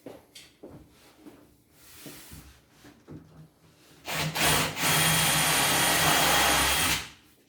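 Light knocks and handling of wooden parts. Then, about four seconds in, an electric tool's motor starts and runs steadily for about three seconds before cutting off.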